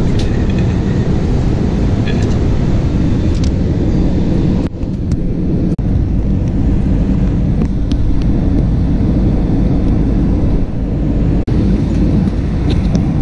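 Steady low rumble of jet airliner cabin noise, engines and airflow running, as the plane descends toward landing. Three brief dips in level break it up.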